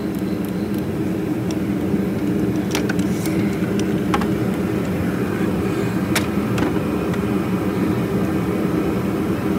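Space heater running with a steady low drone, with a few sharp metal clicks as a 13 mm nut is worked off the A/C line block on the expansion valve.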